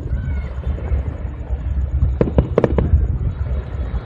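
Aerial fireworks display: a continuous deep rumble of shell bursts, with a quick cluster of sharp cracks about two seconds in.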